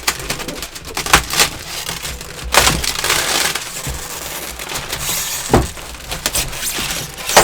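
Packaging crinkling and crackling as airsoft rifle parts are worked out of their box, with scattered sharp clicks and knocks and a louder stretch about two and a half seconds in.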